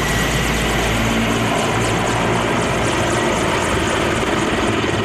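Mil Mi-24 attack helicopter hovering low and lifting off: steady, loud rotor and turbine noise.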